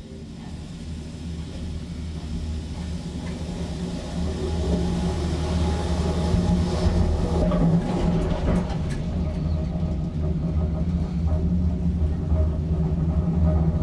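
Steady low rumble and hum of a gondola cable car running along its rope, heard from inside the cabin, growing louder as the cabin nears a lift tower, with a few light clicks partway through.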